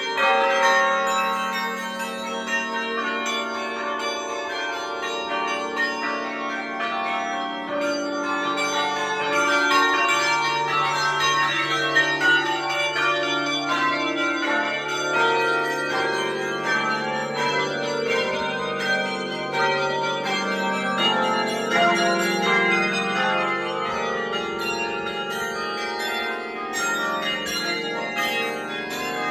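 Several church bells ringing close up in the bell tower, strike after strike, with their tones ringing on and overlapping.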